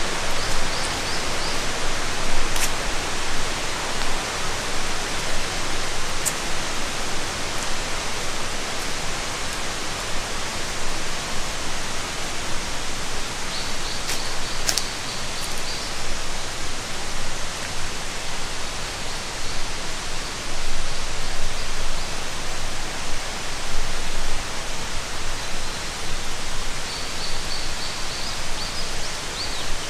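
Steady rushing of a river or stream running over rocks, with a few short, faint, high trills now and then.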